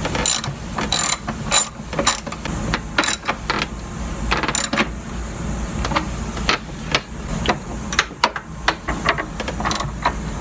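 Irregular clicks and knocks of hand tools and battery hold-down hardware being worked on a car battery, some sounding like a ratchet.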